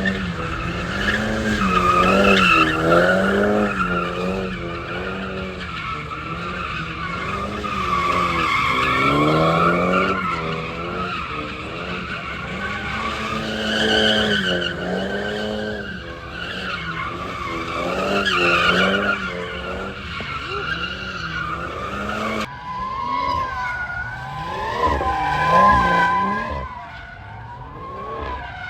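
Drift cars with their engines revved up and down over and over while the tyres squeal and skid. The sound changes abruptly about three-quarters of the way through.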